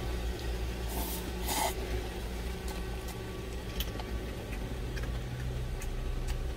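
Short slurps of cup noodles about a second in, then quiet chewing with a few faint clicks of chopsticks, over the steady low hum of the truck's idling engine.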